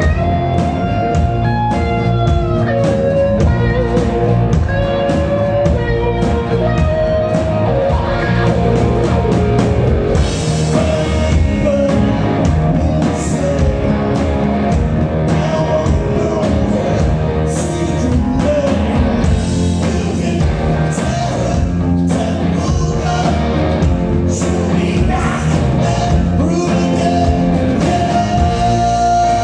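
Live rock band playing: electric guitars over a drum kit, with some singing.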